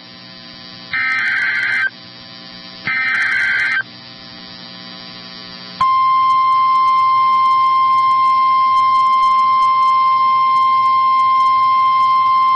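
Two bursts of an EAS SAME digital header, a harsh data screech about a second each, a second apart. After a pause of about two seconds, the steady single-pitch 1050 Hz NOAA Weather Radio warning alarm tone starts about six seconds in. Together they signal an incoming weather warning.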